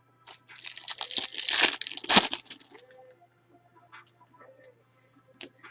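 Foil wrapper of a trading-card pack being torn open and crinkled, about two seconds of crackling, then a few faint clicks as the cards are handled.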